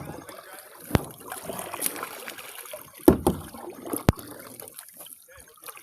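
Kayak paddling: water trickling and splashing off the paddle, with three sharp knocks about a second, three seconds and four seconds in.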